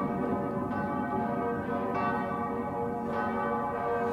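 Church bells ringing, struck about every second and a quarter, three strikes, each blending into a long ringing hum.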